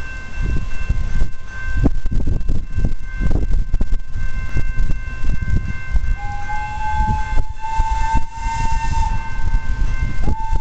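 Thomas the Tank Engine locomotive approaching with a low, uneven rumble. About six seconds in its whistle sounds one long steady note, and a second blast starts near the end.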